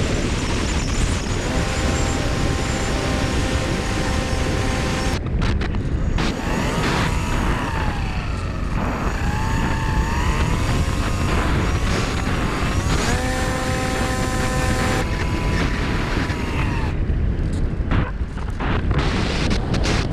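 Wind rushing and buffeting over the microphone of a GoPro riding on a Bixler 2 RC foam plane in flight. Over it, the whine of the plane's electric motor and propeller holds a steady pitch, wavers up and down as the throttle changes, then steadies again.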